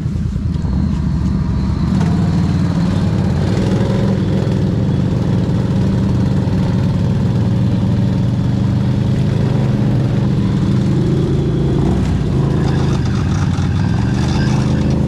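ATV engine running steadily while riding, a dense low engine drone that gets a little louder about two seconds in.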